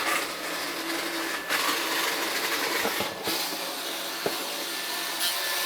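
Sichler robot vacuum running in spot-cleaning mode: a steady whirring hiss from its motors with a thin high whine, broken by a couple of short clicks. The motors sound horrible.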